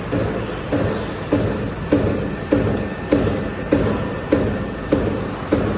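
CNC guillotine machine running in steady cycles: a sharp clunk of the cutting stroke about every 0.6 seconds over the constant hum of its drive.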